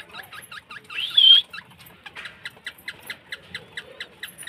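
Pet green parakeet chattering in a quick run of short chirps, about five a second, with one louder squawk about a second in.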